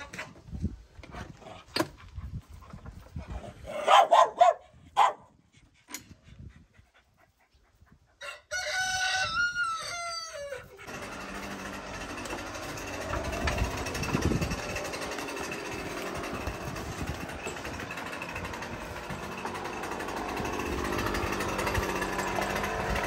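A rooster crows once, about eight seconds in, after scattered knocks and a few loud short calls. From about eleven seconds a small two-stroke engine, the Husqvarna 128R brushcutter, runs steadily.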